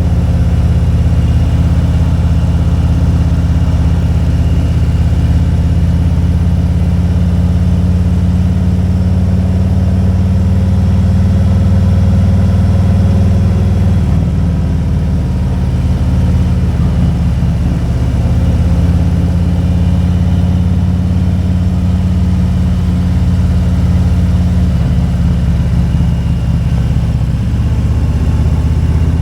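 Motorcycle engine running steadily. Its pitch wavers and shifts for a few seconds about halfway through, then settles back.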